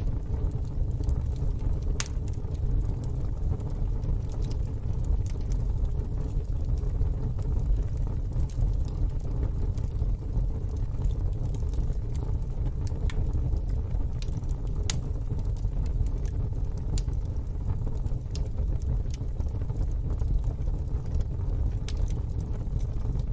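Wood fire in a fire pit crackling, with a few sharp pops, the loudest about two seconds in and about fifteen seconds in, over a steady low rumble.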